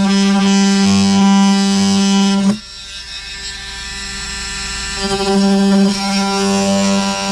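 Handheld power tool running with a steady buzz, cutting out the opening for an outlet box in an RV wall. It stops about two and a half seconds in and starts again about five seconds in.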